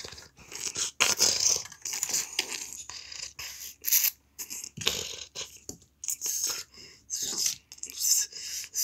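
Close handling noise: irregular scrapes, rustles and clicks as plastic toy figures and the camera are moved about in a mock fight.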